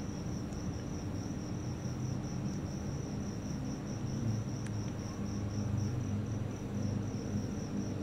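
Insect trilling: a high, evenly pulsing note that keeps going steadily, over a low hum.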